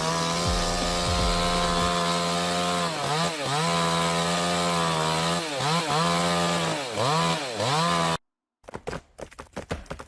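Chainsaw engine running at high revs, the throttle briefly easing off and picking back up several times. It stops abruptly just after eight seconds in, followed by a rapid run of sharp cracks and knocks.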